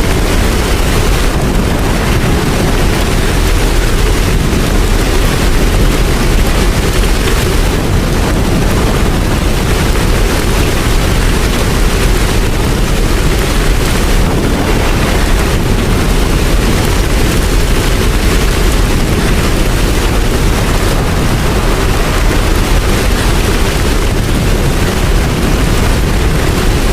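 Steady, loud rain with a deep rumble underneath, unbroken and without any clock chime.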